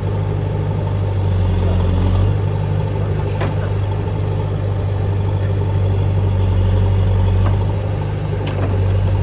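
JCB 3DX backhoe loader's diesel engine running steadily as it works, with its loudness swelling slightly now and then. Two short sharp knocks come about three seconds in and near the end.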